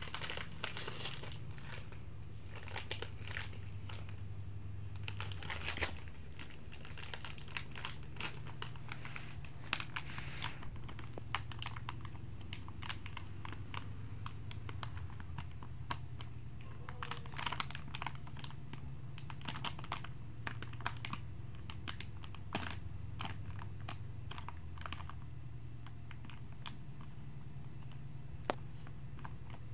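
Plastic wet-wipes pack crinkling and crackling in irregular bursts as a toddler handles it and pulls wipes out through its flap, over the steady low hum of an electric fan.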